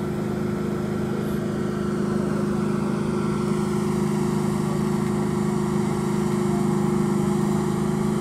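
An engine running steadily at idle, one even hum with no change in pitch.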